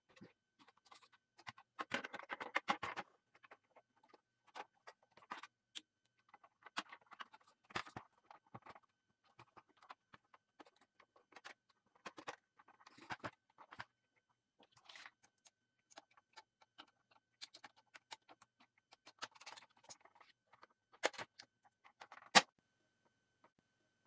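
Plastic parts of a Zebra GK420d label printer being handled and fitted back together: scattered clicks, taps and small rattles, with one sharp click near the end.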